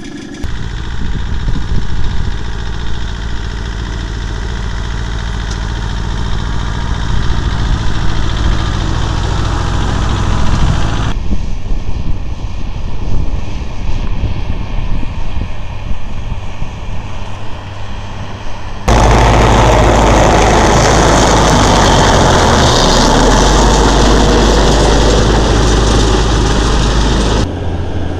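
Large Fendt farm tractor diesel engines running steadily under load in field work, heard as several separate recordings cut together, each changing abruptly. One stretch in the second half is much louder and noisier.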